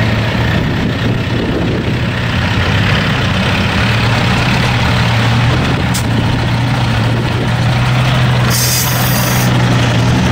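IFA W50 fire truck's four-cylinder diesel engine running steadily at low speed as the truck moves slowly. A single click about six seconds in and a brief hiss lasting about a second near the end.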